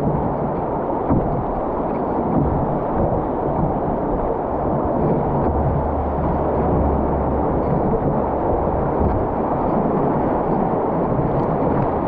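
Whitewater rapids rushing loud and steady, with low rumbles of wind buffeting the microphone.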